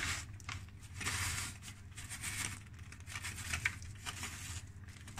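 Paper bag of sugar crinkling and rustling in short bursts as it is handled and tipped over the pastry to sprinkle sugar.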